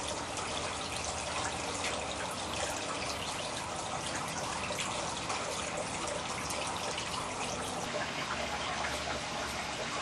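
Small wall-mounted stone fountain running, water steadily trickling and splashing into its basin.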